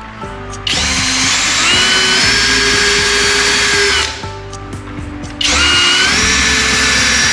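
Worx WU369 electric drill run twice, about three seconds each time: each run spins up to a steady high whine and winds down as the trigger is released.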